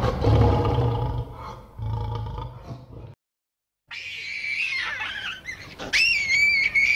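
A lion roaring in a series of grunting roars that fade out about three seconds in. After a short silent gap, a different high whistling animal call with sliding, wavering pitch begins.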